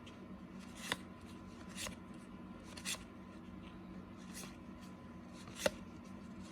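Cardboard trading cards being handled and flipped through one at a time, with a short sharp flick or slide about every second, the loudest one near the end, over a faint steady hum.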